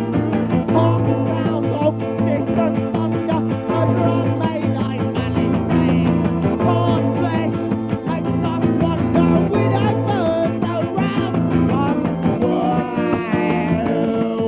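Indie rock band recording playing: guitar and keyboard over a steady beat and sustained bass notes, with a wavering melodic line growing busier near the end.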